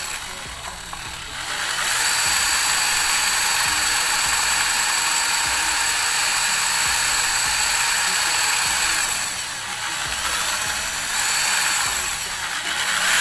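Electric drill running, its bit boring a hole in the centre of an LED bulb's LED plate, with a steady whine. It runs slower at first, speeds up about two seconds in, eases off briefly after the middle, then picks up again near the end.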